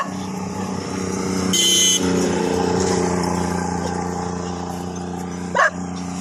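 A motor engine running steadily with a low hum. A half-second high-pitched tone sounds about one and a half seconds in, and a dog barks once near the end.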